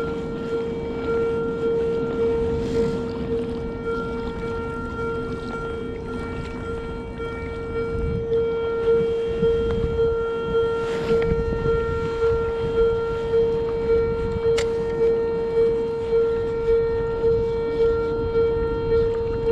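A steady, even-pitched mechanical drone with overtones, swelling and fading a little more than once a second in the second half, over wind noise on the microphone.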